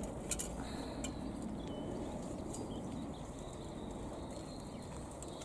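Wheelbarrow of wet plant cuttings being handled and tipped out: faint rustling over a steady outdoor background, with a light knock about half a second in.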